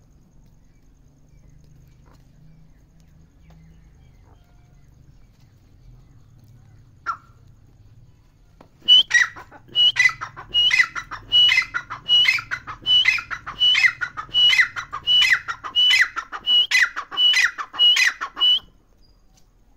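Grey francolin calling: a loud, evenly spaced series of about fifteen repeated calls, somewhat more than one a second, starting about nine seconds in and stopping about a second before the end. Before that there is only faint low background noise and one short chirp about seven seconds in.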